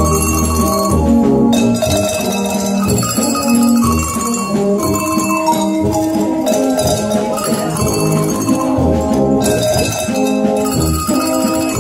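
Brass band music with tenor horns, baritones and tuba, playing a tune. A set of tuned hand bells is rung as a solo voice over it.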